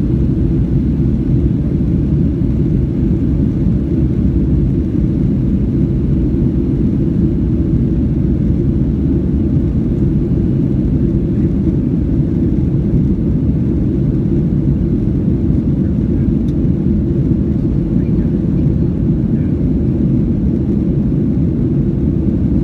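Cabin noise inside a Boeing 737-800 airliner with CFM56-7B turbofan engines: a loud, even, low-pitched rumble of engines and airflow that holds steady without change.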